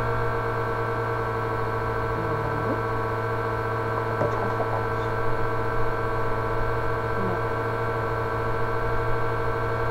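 Electric fan running, a loud, steady hum made of several held tones.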